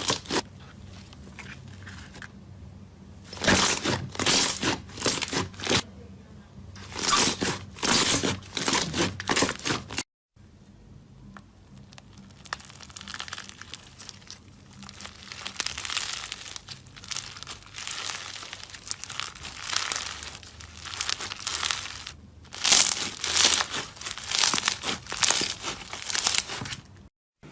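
Slime being squeezed and worked by hand, giving crinkly, crackling bursts in clusters. There is a sudden break about ten seconds in, where a new clip starts.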